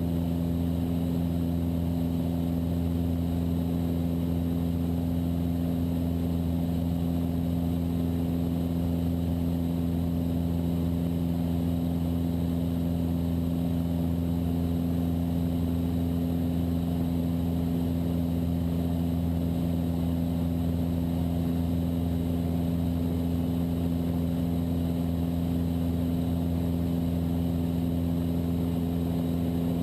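Cessna 172's piston engine and propeller running steadily in flight, a constant drone with no change in pitch.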